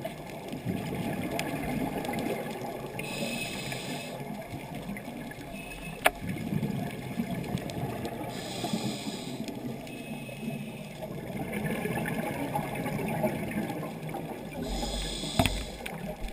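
Scuba diver breathing through a regulator underwater: three hissing inhales, about every five and a half seconds, with a low bubbling rumble of exhaled air between them. There is a sharp click about six seconds in and another near the end.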